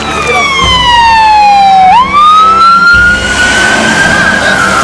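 Ambulance siren wailing, loud: its pitch slides down for about two seconds, swoops sharply back up, then slowly falls again.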